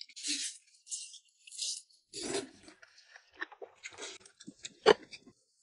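Noodles being slurped in a run of short hissing sucks, with chewing between them, and one sharp click about five seconds in.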